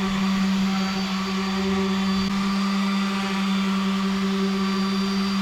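Electric power sander running steadily with a strong motor hum, sanding down a hardwood cutting board to take off grain raised by wetting it.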